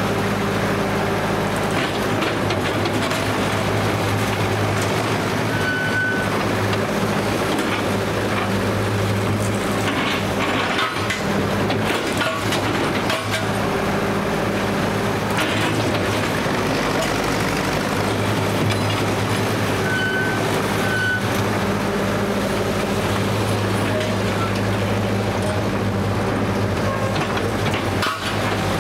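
Engine of a 1955 Bucyrus-Erie 15-B cable shovel running steadily under load while the dipper digs into a dirt pile and swings, with clanks from the machinery and a few short high squeaks.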